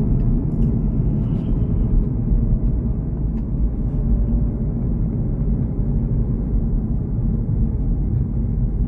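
In-cabin sound of an Audi S5 Sportback's supercharged 3.0 V6 on the move: a steady low engine and road rumble with no revving.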